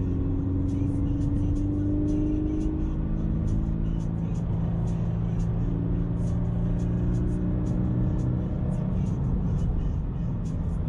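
Toyota 86's FA20 flat-four boxer engine pulling the car uphill under load, heard from inside the cabin, its note rising slowly.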